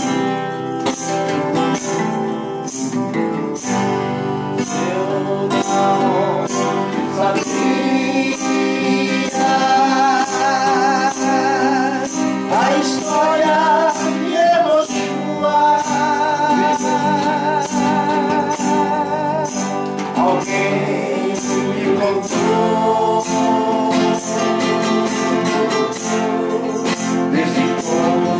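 Two acoustic guitars strummed together, with a man singing a Christian song in Portuguese, his voice wavering with vibrato from about six seconds in.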